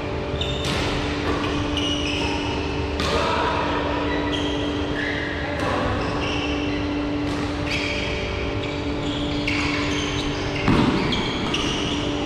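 Badminton rally in a large, echoing hall: rackets hitting the shuttlecock in a run of sharp pops, with court shoes squeaking briefly on the floor between shots. One louder thump about ten and a half seconds in.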